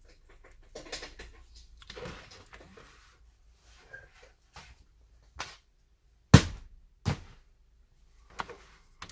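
Handling noise on a workbench during clean-up: rustling and small clicks of the removed digitizer glass and debris being gathered, then a few sharp knocks of items set or dropped down, the loudest about six seconds in.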